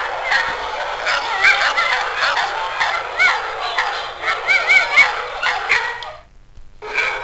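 Recorded dog yips, barks and wavering whines played from a dog-sounds app. The sounds stop abruptly about six seconds in and start again near the end.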